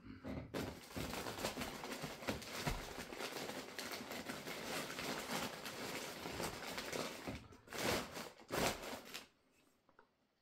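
Packing material rustling and crinkling as a hand digs into a beer parcel for the next bottle, a dense crackle that ends with two louder short rustles and then stops.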